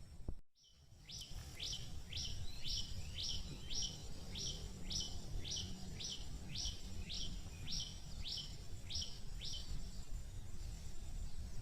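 A bird repeating a short, high, rising chirp about twice a second, some fourteen times, then falling silent near the end, over a steady low rumble.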